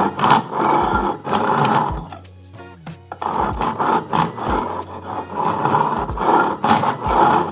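Chef's knife drawn again and again through the slot of an IKEA ASPEKT manual knife sharpener, a rasping scrape with each pull. About nine strokes, with a pause of about a second around two seconds in.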